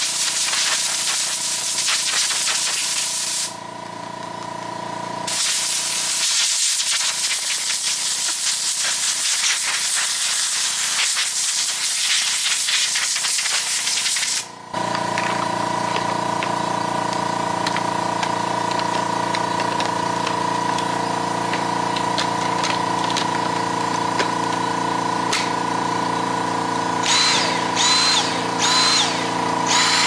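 Compressed air hissing in long blasts from an air-compressor blow gun, blowing accumulated dust out of a Dyson cordless vacuum's cyclone and filter parts. About halfway through the hiss stops abruptly and a steady motor hum with several tones takes over, with a few short high whines near the end.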